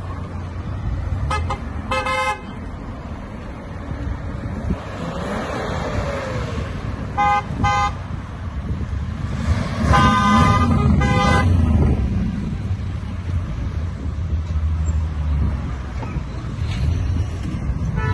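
Convertible cars driving past one after another over steady engine and tyre noise, sounding their horns: short toots about two seconds in, a quick double toot about seven seconds in, and a longer run of honks around ten to eleven seconds in.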